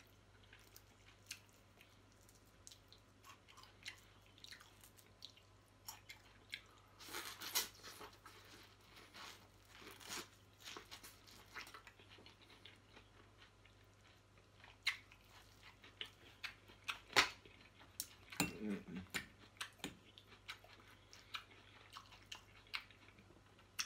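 Corn on the cob bitten and chewed close to the microphone: a run of short soft crunches and mouth clicks, busiest about a third of the way in and again toward the end.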